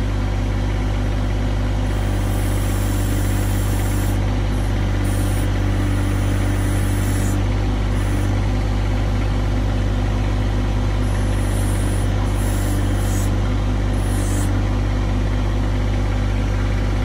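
John Deere 1025R compact tractor's three-cylinder diesel engine idling steadily.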